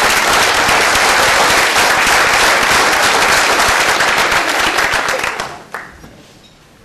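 Audience applauding, many hands clapping loudly, dying away about five and a half seconds in.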